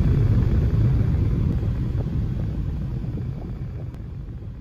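Steady low road and wind rumble of a moving car, fading out gradually.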